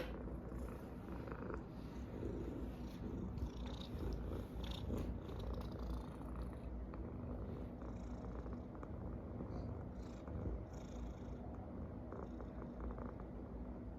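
A domestic cat snoring, a low steady rumble.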